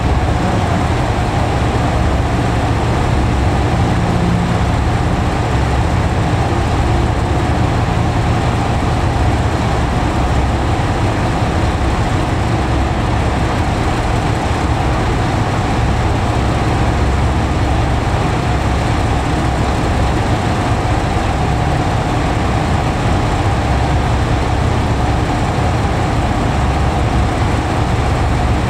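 JR Shikoku 2000 series diesel railcar's engines idling while the train stands: a steady, unbroken low drone with a constant hum over it.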